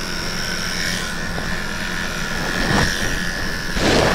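Electric dog grooming clippers fitted with a 5F blade, running steadily with a high whine while cutting a puppy's coat. Two short bursts of noise near the end, the second the louder.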